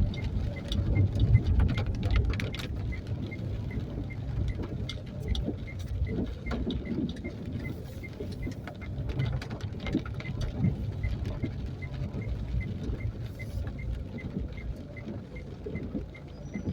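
Street ambience: a steady low rumble with scattered crackling patter, and a faint high pip repeating about three times a second.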